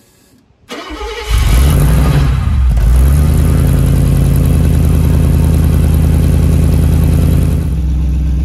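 Mercedes 350 SL's fuel-injected 3.5-litre V8 starting: a brief crank about a second in, catching and then running at a steady idle through its twin exhausts.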